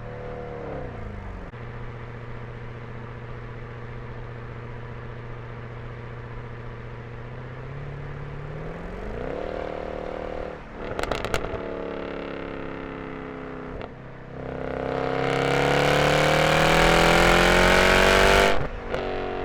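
Mercedes E63 AMG's 6.3-litre M156 V8 exhaust, resonators deleted. The engine note drops and holds steady, rises briefly, and gives a few sharp crackles. From about two-thirds in it revs hard, climbing loudly for about four seconds, then cuts off near the end with a crackle.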